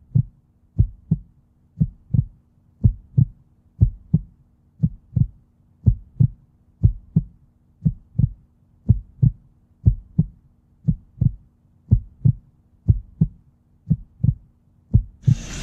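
Heartbeat sound effect: paired low thumps in a steady lub-dub rhythm, about one beat a second. Just before the end a loud rush of noise cuts in suddenly.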